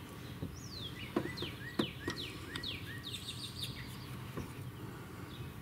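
A songbird singing a run of quick chirps, each sliding down in pitch, with a few light clicks of the plastic backup camera and its plug being handled.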